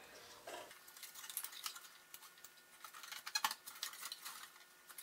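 Light, scattered clicks and scrapes of a circuit board assembly being handled and pushed onto its plastic retaining clips in a spectrum analyzer's metal chassis, with a small cluster of clicks a little after three seconds in.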